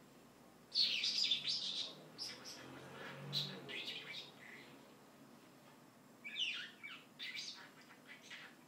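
Pet bird chattering and warbling in quick, high, chirpy notes, in two bouts with a short pause between them.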